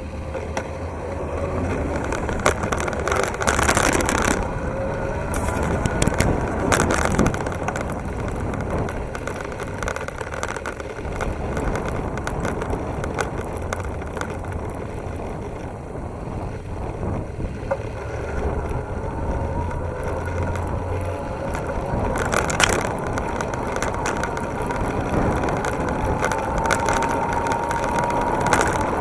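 Electric bike ridden along a paved path: a steady rumble of tyres and wind, sharp knocks and rattles over bumps, and a thin whine that climbs slowly in pitch over the last ten seconds as the bike speeds up.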